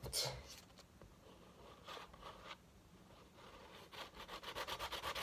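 Scraping and rubbing on a painting as a thin coat of paint is spread around, turning about four seconds in into quick, even back-and-forth rubbing strokes, roughly eight a second.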